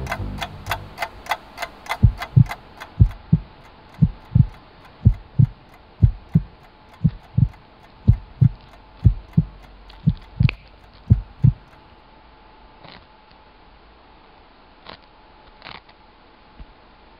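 Heartbeat sound effect: paired low thumps (lub-dub) about once a second, stopping about eleven and a half seconds in. A few faint clicks follow over a faint steady hum.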